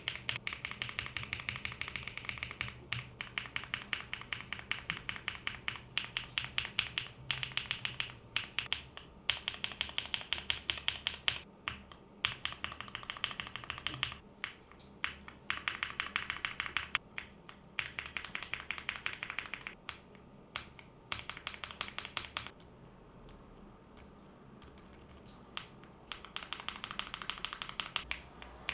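Akko mechanical keyboard switches being pressed in quick runs of clicks, each run a few seconds long, with brief breaks between runs and a longer pause of about three seconds near the end.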